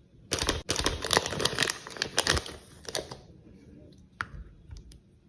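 Dense crinkling and crackling, as crinkly material is squeezed and handled, for about three seconds, followed by a few scattered clicks.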